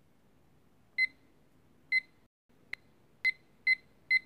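Digital study timer giving a short high beep with each button press: five beeps at uneven spacing, with a single click between the second and third.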